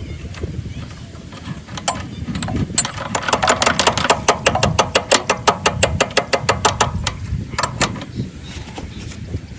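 12 HP diesel water-pump engine during a hard start: a fast, even run of sharp mechanical knocks, about six or seven a second, starting about three seconds in and lasting some four seconds, then thinning to a few scattered knocks over a low rumble.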